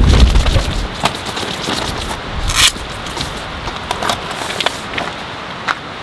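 Strong wind gusting against a shelter tent, a gust rumbling on the microphone at the start, then the tent fabric rustling and crackling with scattered light clicks, and one brief sharp rustle about two and a half seconds in.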